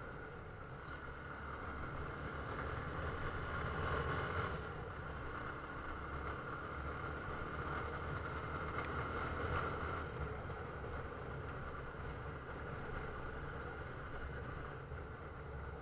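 A vehicle running on the road: a steady low engine and road hum that swells a little about four seconds in and again around nine seconds.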